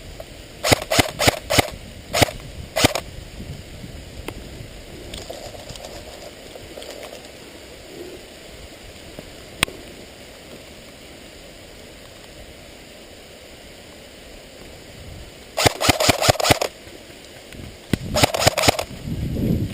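Airsoft guns firing: several single shots in the first three seconds, then two quick bursts of rapid fire near the end.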